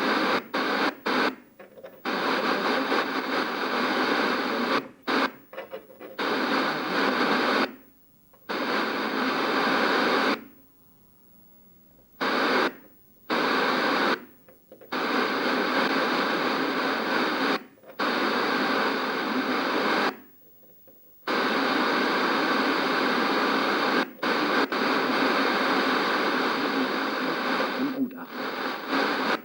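Old analog TV static: a loud, dense hiss that keeps cutting out abruptly and coming back, with silent gaps from a fraction of a second up to nearly two seconds long.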